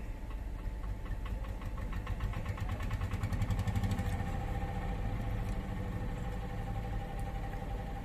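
A machine's engine running steadily, with a rapid, even ticking through the first half and a steady whine from about halfway on.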